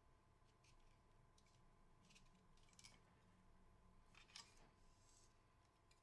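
Near silence with faint plastic clicks and rustles from fingers handling a PC case fan and its cable, the loudest a little over four seconds in, over a faint steady hum.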